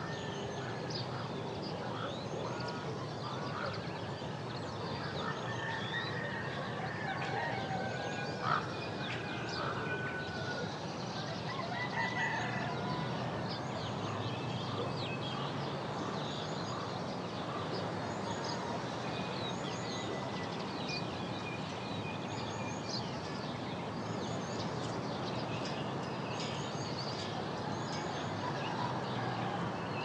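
Forest ambience: many birds chirping and calling, some calls held briefly, over a steady background hiss, with one sharper call standing out about eight and a half seconds in.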